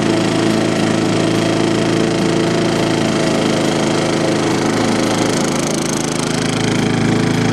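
Remote-controlled lawnmower's engine running steadily, dipping slightly in level for about a second past the middle.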